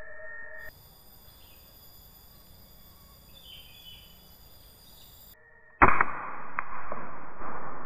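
A pump air rifle ('uklik') firing once almost six seconds in: a sudden sharp crack, followed by about two seconds of noisy sound that fades away.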